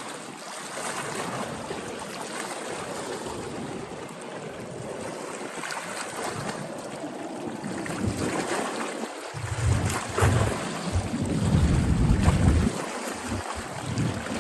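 Wind blowing across the microphone over a steady wash of water, with low buffeting gusts getting stronger in the last few seconds.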